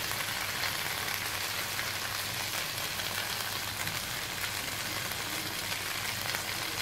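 Spiced okra sizzling in a nonstick kadai on the flame, a steady crackling hiss, the water added earlier having cooked off.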